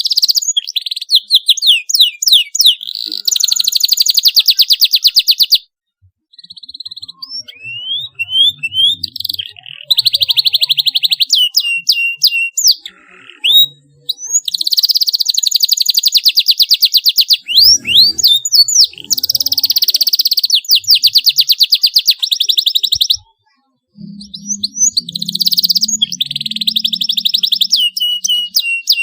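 Domestic canary singing: fast rolling trills and quick sweeping chirps in long phrases, with short pauses twice. A 'cuit cuit' chirping song of the kind played to young canaries to coax them into singing.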